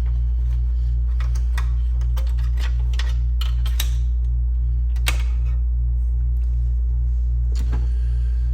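Small clicks and taps of plastic and metal computer parts being handled during reassembly, over a steady low hum that throbs about three times a second. The sharpest click comes about five seconds in.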